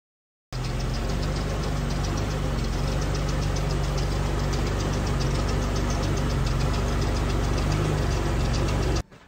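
Carburetted engine of a 'Kujira' Toyota Crown idling steadily, starting about half a second in and cutting off near the end.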